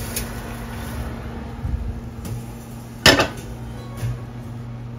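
Kitchen handling noises: a few light knocks and clatters, with one sharp, loud knock about three seconds in, over a steady low hum.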